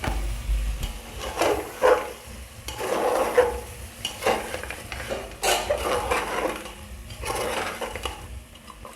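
Spoon stirring and scraping spiced goat trotters around a pot in a series of irregular strokes, over a low sizzle of masala frying with a little added water.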